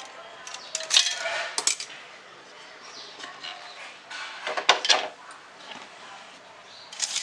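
Metal kitchenware clatter: a steel pot gripper clinking against an aluminium cake tin and its wire stand about a second in, then another short clatter a little past the middle as the aluminium pressure cooker is shifted on the stone countertop.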